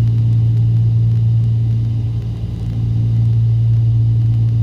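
Steady low drone of a Cessna 310's twin piston engines and propellers in flight, heard inside the cabin.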